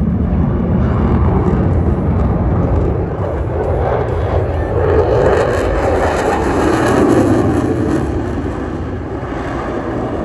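Jet aircraft flying past at an airshow: a loud, steady rush of jet noise whose pitch falls as it goes by, in the second half.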